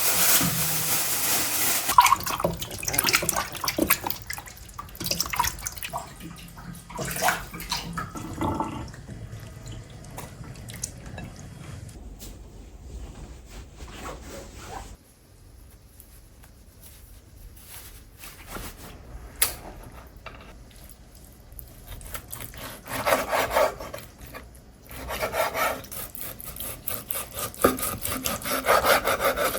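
Kitchen food preparation: water running and dripping at a sink, then rubbing and scraping in bursts from about 23 seconds in.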